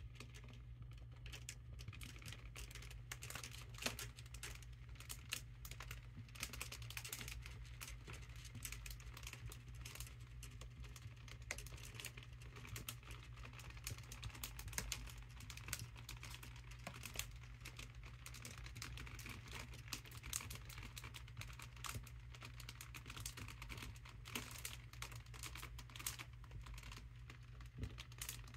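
Mylar foil balloon crinkling and crackling in dense, irregular little clicks as a hand presses down on it to push the air out, over a steady low hum.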